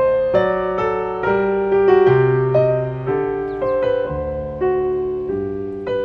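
Background piano music: a gentle melody of struck notes over lower held notes.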